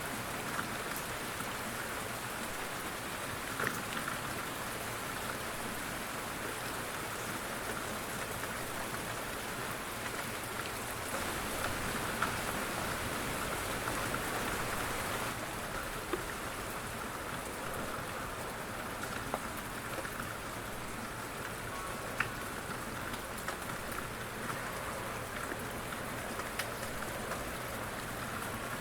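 Steady light rain falling, with scattered individual drops ticking on a surface.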